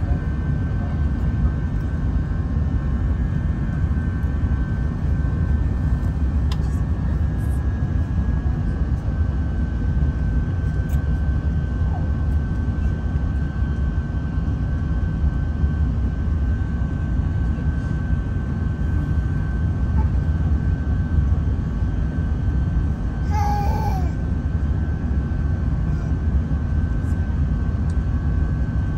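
Airbus A380 cabin noise: a steady low rumble of engines and airflow with a constant high whine above it. A brief high-pitched sound cuts through about 23 seconds in.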